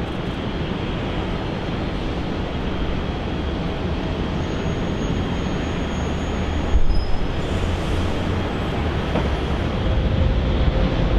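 Steady rumble of jet airliner engines, swelling slightly near the end, with a brief thump about seven seconds in.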